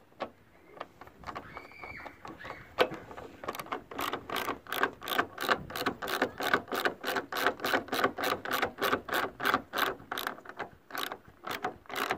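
Hand socket ratchet clicking as the handle is worked back and forth to tighten a bolt. The clicks are sparse at first, then from about three and a half seconds in come in a rapid, even run of about four a second.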